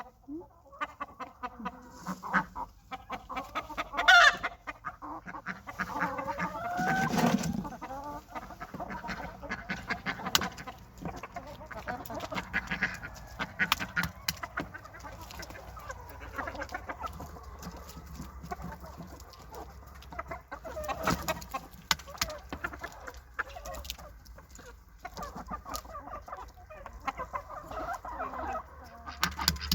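A flock of chickens and chicks clucking and cheeping steadily while feeding, with scattered sharp pecking taps and a louder burst of calls about seven seconds in.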